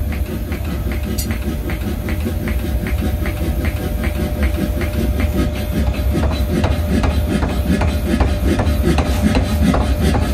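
Power hammer forging a red-hot steel bar: a steady run of sharp blows, about three a second, over the machine's constant low running rumble.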